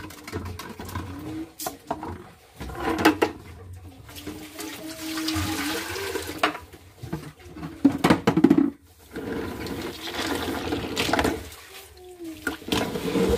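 Water splashing as it is poured from a plastic dipper into a basin of clams and the clams are rinsed by hand, in several pours, with sharp clicks of shells knocking together in between.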